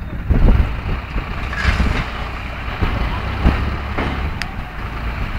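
New Holland 3630 tractor's three-cylinder diesel engine running under load as its front loader tips a bucket of sand into a tipper trailer, with a rush of sand pouring about a second and a half in and a sharp metallic click near the end.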